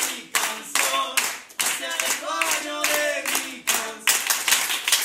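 Audience clapping in time to a steady beat while voices sing. About four seconds in, the rhythmic clapping gives way to continuous applause.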